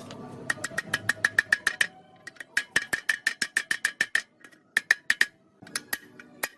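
Rapid metal-on-metal tapping, about seven or eight sharp ringing strikes a second, in several bursts with short pauses between them.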